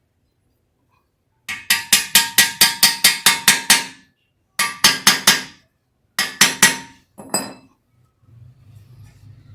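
A hammer tapping metal on the Yamaha FZ25's swingarm pivot, where the new pivot shaft is being lined up and driven into place. A quick run of about a dozen ringing taps, about five a second, is followed by two groups of three and a last single tap.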